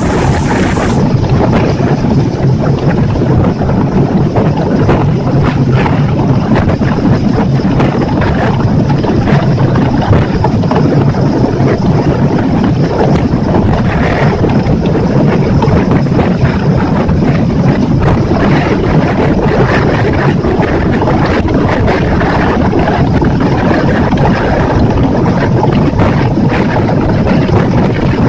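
Small boat under way: wind buffeting the microphone over the steady drone of a Yamaha F60F 60-horsepower four-stroke outboard and water rushing past the hull.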